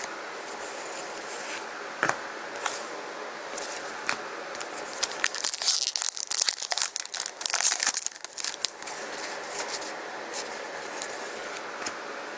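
Foil trading-card pack wrapper crinkling and tearing as it is opened, loudest for about three seconds in the middle, with a few light taps before it.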